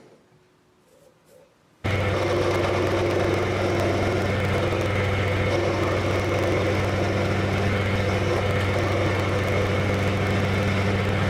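An electric workshop machine running steadily with a deep hum, coming in suddenly about two seconds in after near silence.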